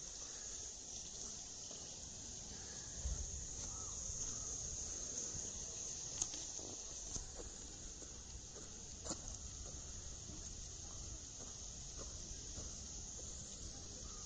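Faint outdoor ambience: a steady high hiss with a low rumble that strengthens about three seconds in, and a few faint clicks.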